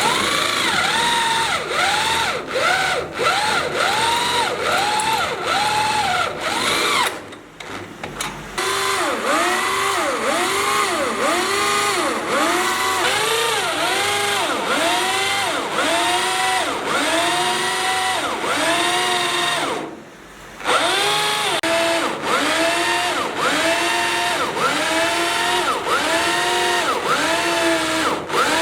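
Electric drill boring into steel, its motor whine rising and falling over and over, about once or twice a second, as the bit bites and eases. The drill stops and starts again twice.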